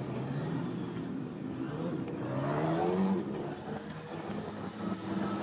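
A motor vehicle's engine running nearby, rising in pitch as it speeds up about two to three seconds in, over steady background noise.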